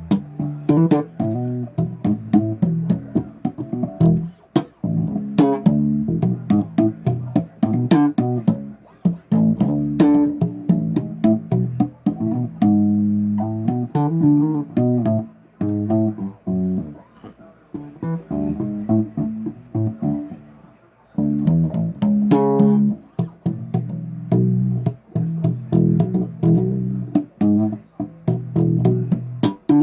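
Bass guitar played solo, a string of plucked riffs and runs, easing off to a few sparse notes about two-thirds of the way through before the playing picks up again.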